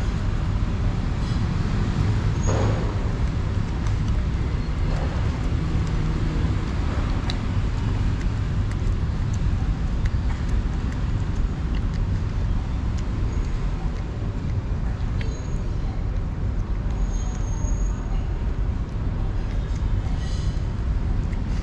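Steady low rumble of city traffic, with a few faint clicks of a cat chewing wet food.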